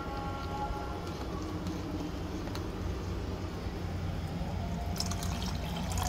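A spoon stirs a thin white mixture in a plastic bowl with a few light clicks, then the mixture is poured into a pot of gravy with a short splashy hiss near the end. A low steady hum runs underneath.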